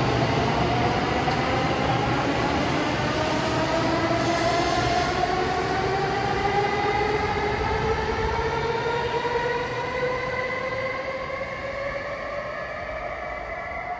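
N700S Kamome shinkansen moving along the platform as it gathers speed, its traction motors giving a whine of several tones that rise slowly in pitch over the rumble of the cars. The sound fades over the last few seconds as the train draws away.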